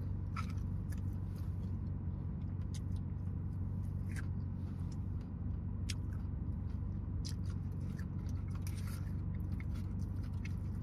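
A person biting and chewing fried chicken close to the microphone: scattered small clicks and crunches from the mouth. Under it runs a steady low hum inside the car cabin.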